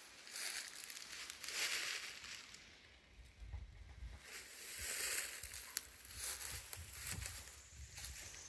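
Footsteps crunching and rustling through dry leaves on a forest floor, in uneven swells, with a few sharp clicks.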